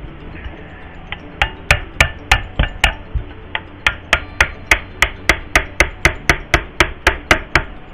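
A hand tool tapping rapidly and repeatedly on a small-engine carburetor body, about three to four sharp knocks a second with a brief pause near the middle, to work loose a part stuck on with sealant.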